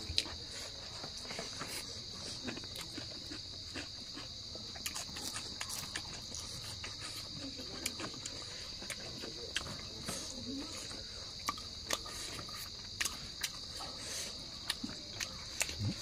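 Steady high chirring of night insects, with scattered small clicks and smacks of people chewing and picking at food with their hands.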